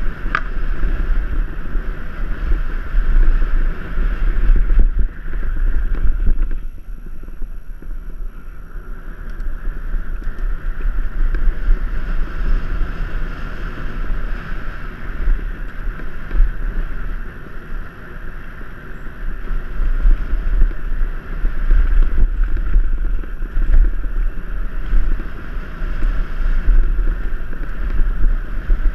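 Wind buffeting an action camera's microphone and mountain bike tyres rumbling over a dirt trail on a fast downhill run. The noise eases for a few seconds about six seconds in, then picks up again.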